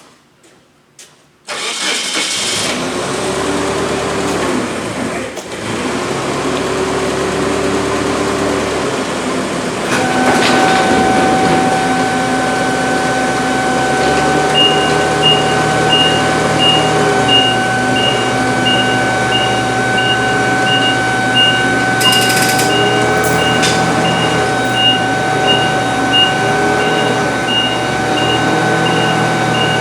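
A machine's engine starts about a second and a half in and keeps running steadily. Around ten seconds in a steady whine joins it, and a few seconds later a regular high beeping starts, a little more than one beep a second, like a machine's warning beeper.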